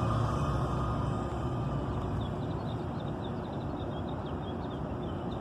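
Inside a transit bus with a Cummins Westport L9N natural-gas engine: steady cabin running noise that eases off during the first two seconds and then holds at a lower, even level. Faint short high chirps come in over the second half.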